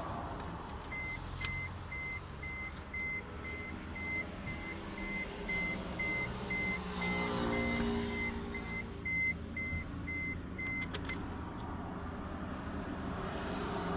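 A car's electronic warning chime beeping at a steady pitch, about two beeps a second, stopping just after a couple of sharp clicks near the end. A short pitched hum sounds about halfway through.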